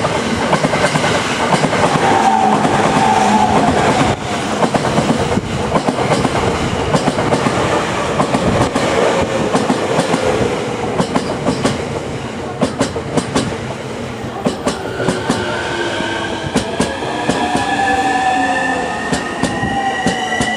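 JR East E231 series electric train running past as it slows into a station, its wheels clacking over rail joints. The whine of its traction motors falls in pitch through the first half, and a rising whine sets in during the last few seconds.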